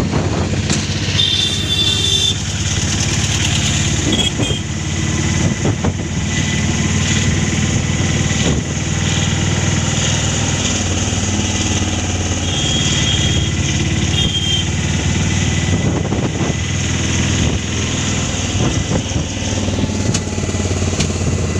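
A vehicle engine running steadily with a constant low hum, with road or wind noise over it. A brief high-pitched tone sounds twice, about a second in and again about two-thirds of the way through.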